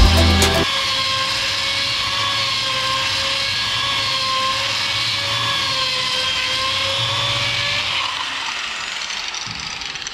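Angle grinder running with a steady high whine whose pitch wavers slightly under load, driving a belt that polishes a stainless-steel exhaust pipe. It winds down over the last two seconds or so.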